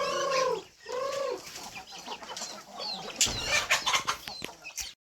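Chickens clucking, with two drawn-out rising-and-falling calls in the first second and a half, then a flurry of short clicks and rustling; the sound cuts off suddenly near the end.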